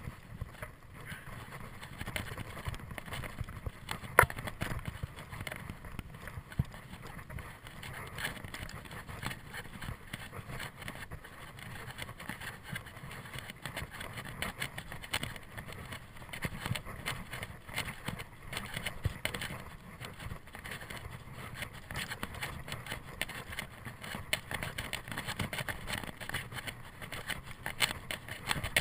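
Mountain bike riding over a dirt singletrack trail: tyres running on dirt, with the bike rattling and clicking over bumps and a sharp knock about four seconds in.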